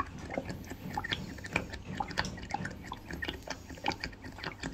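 Irregular light clicks and taps, several a second, over a low steady hum.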